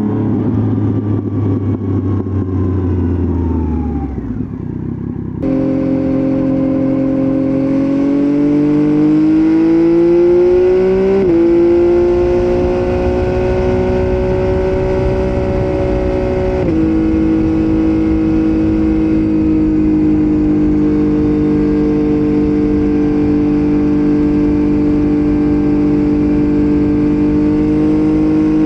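Motorcycle engine recorded raw while riding. About five seconds in the sound changes abruptly, then the engine climbs in pitch under acceleration, drops at a gear change around eleven seconds in, climbs again, drops once more and settles into a steady cruise.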